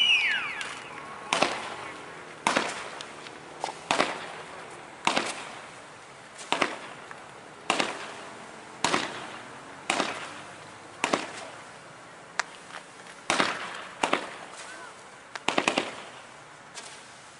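Fireworks going off in a steady string of sharp bangs, about one a second, some doubled or in quick clusters, each ringing out briefly.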